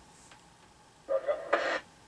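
Moonraker Minor II CB radio's speaker giving one short burst of received static and noise, under a second long, about a second in, then cutting off sharply. The base operator puts the static down to the mobile station passing the crossroads.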